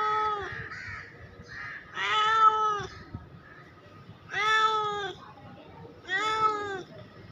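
A domestic cat meowing repeatedly: one call just at the start, then three more about two seconds apart, each under a second long with a steady pitch that drops slightly at the end.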